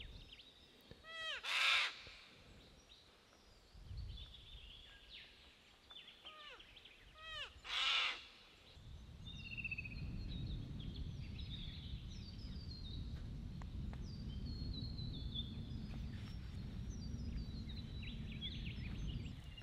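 Two loud, harsh cockatoo screeches about six seconds apart, with smaller birds chirping in short falling notes around them. About nine seconds in, a steady low rumble sets in under the continuing birdsong.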